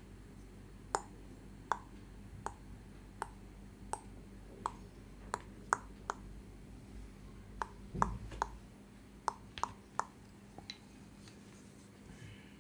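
A series of sharp snapping pops from a massager's hands, about one every three-quarters of a second and a little quicker in places, with a dull thump about eight seconds in.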